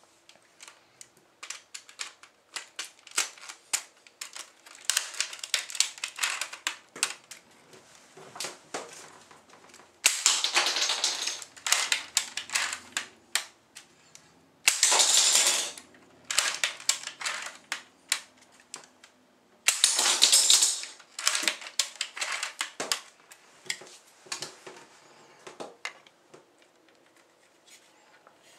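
Hard plastic LEGO parts of a brick-built bolt-action rifle clicking and clattering as it is handled and worked: many sharp separate clicks, with three denser rattling stretches of about a second each, about ten, fifteen and twenty seconds in.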